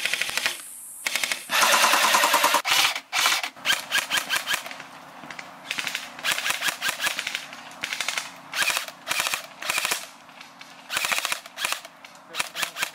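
Airsoft rifles firing in rapid full-auto bursts. There is one long burst of about a second near the start, then many shorter bursts with brief gaps between them.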